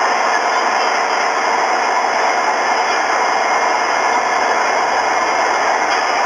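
Steady, even noise from a doorbell security camera's recording played back through a phone's speaker, with no distinct events.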